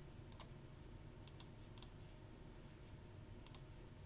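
Faint, scattered clicks at a computer, a few single clicks and quick pairs over a near-silent room.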